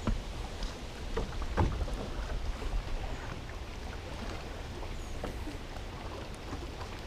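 Steady low rumble of water against a small fishing boat's hull, with wind on the microphone, and a few light knocks in the first two seconds.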